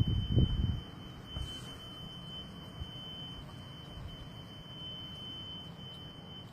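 Low rumbling wind noise, loudest in the first second and then steady, under a thin high-pitched whine that holds one steady pitch.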